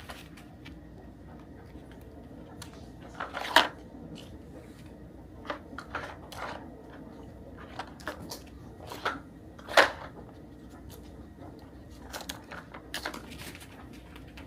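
A dog rummaging through a nosework toy for hidden treats, with scattered rustles and clicks and two louder knocks, one about three and a half seconds in and one near ten seconds.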